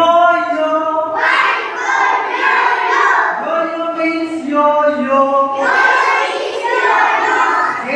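Young children singing together with a man leading them, an alphabet song sung in unison with steady held notes.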